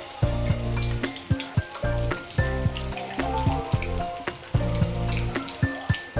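Food frying in hot oil, a steady sizzle with many small crackles and pops, under instrumental background music with a stepping melody and bass.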